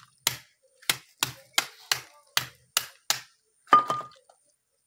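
A small hammer cracking giant African land snail shells against a plastic sheet on concrete: a steady run of sharp blows, about three a second. The blows stop a little after three seconds, and a louder clatter with a short ringing tone follows.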